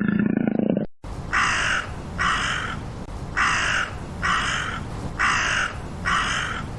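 The tail of a big cat's deep roar, cut off just under a second in, then a crow cawing six times in harsh calls spaced a little under a second apart.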